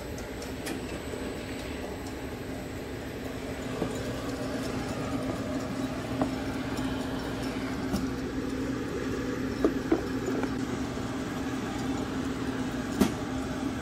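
Conveyor-fed box printer running with a steady mechanical hum, with a few sharp knocks scattered through as boxes move along the rollers; it gets a little louder about four seconds in.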